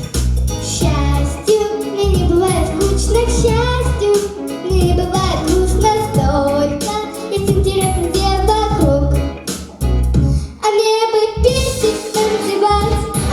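A young girl singing a lively pop song over instrumental accompaniment with a steady, pulsing bass beat.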